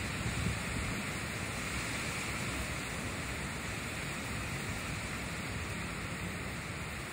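Heavy rain and strong gusting wind of a severe thunderstorm, a steady rush of noise with wind buffeting the microphone.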